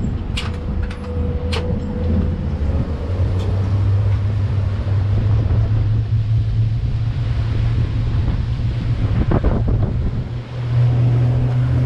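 Water taxi's engine running with a steady low drone, with a few sharp clicks in the first couple of seconds.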